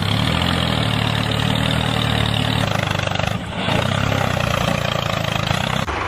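Tractor engine running steadily at a low idle, with a brief dip about three and a half seconds in.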